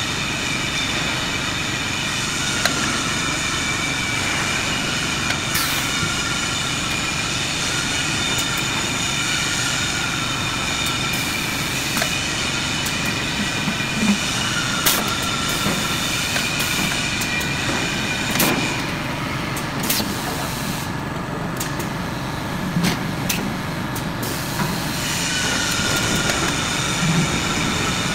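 Automatic pail palletizing line running: steady machine noise with several high whining tones from conveyor rollers and drives, which fall away for a few seconds about two-thirds of the way through and then come back. Scattered clicks and knocks of metal paint pails being moved and gripped are heard on top.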